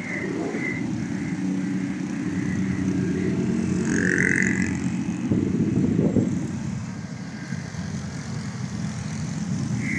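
Road traffic: engines of passing vehicles running with a steady low hum, with a brief high-pitched tone about four seconds in.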